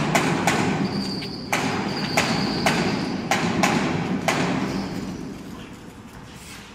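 A string of sharp metal knocks and clanks, about a dozen in the first four and a half seconds, as a CNC router gantry hanging on lifting slings is worked free of its frame. Beneath them a steady mechanical hum with a thin high whine starts suddenly and fades out after about five seconds.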